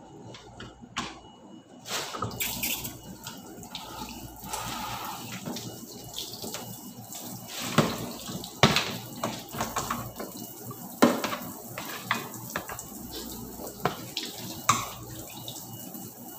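Kitchen tap running into a sink while plastic kitchenware is washed, with several sharp knocks as the plastic colander and basin are handled against the sink.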